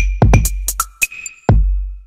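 Upbeat electronic dance music with a drum-machine beat: heavy kick drum and deep bass under crisp high percussion hits in a syncopated pattern. The bass drops out briefly about a second in.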